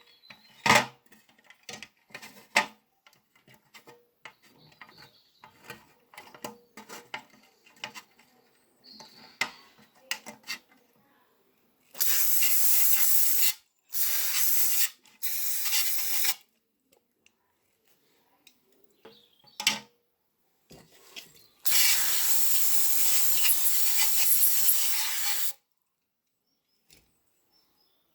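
A run of small clicks and knocks from handling small parts. Then come four bursts of pressurised spray hissing, the last and longest lasting about four seconds.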